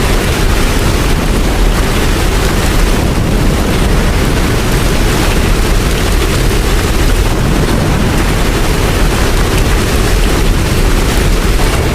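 Steady heavy rain: a dense, even hiss with a deep low rumble underneath and no separate strikes.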